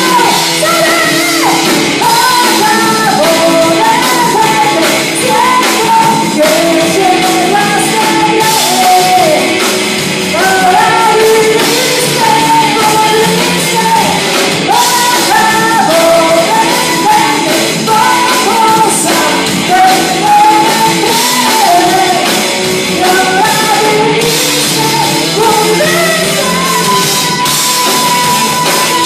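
Live rock band playing: a singer's melodic vocal line over electric guitars and drums, loud and thin in the bass. Near the end a single note is held steady.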